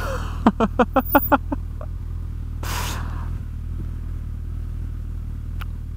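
Motorcycle engine running at low revs with a steady low rumble, with short laughter in the first second and a half and a brief hiss about three seconds in.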